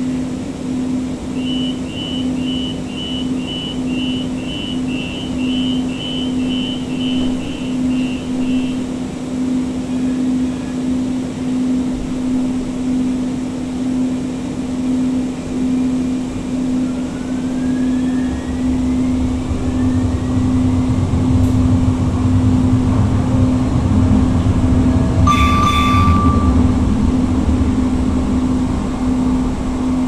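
Inside a Siemens S200 light rail car with Siemens IGBT-VVVF motors: a run of high beeps, about two a second for some seven seconds, while the car stands at a stop, typical of the door-closing warning. Then the car pulls away, its traction motors giving a rising whine and the running rumble growing louder, under a steady pulsing hum, with a short ding late on.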